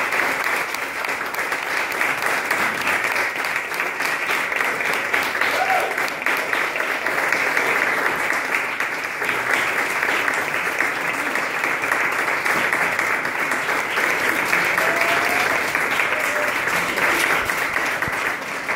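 Audience applauding steadily, a dense patter of many hands clapping, with a few voices calling out over it.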